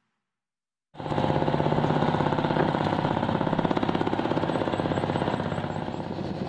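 Near silence for about a second, then the engine of a small wooden klotok boat comes in suddenly and runs with a fast, steady knocking beat.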